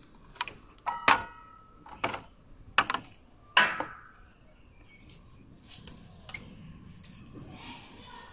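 Sharp plastic clicks and knocks, about five in the first four seconds, as wiring-harness connectors are pushed into an inverter air conditioner's outdoor control board; one click about a second in rings briefly. The last few seconds are quieter handling sounds.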